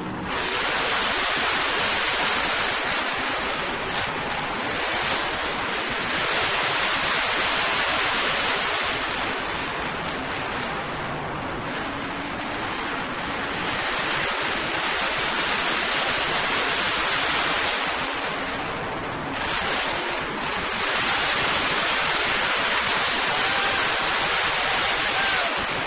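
Monster truck engines racing in a stadium, mixed with the crowd, heard from the stands as a dense rushing roar that swells and eases several times.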